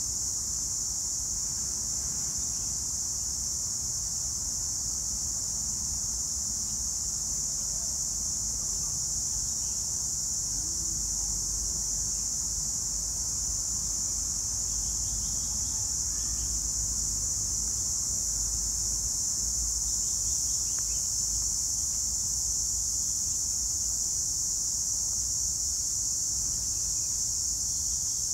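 Steady high-pitched drone of insects in the trees, unbroken throughout, over a low background rumble.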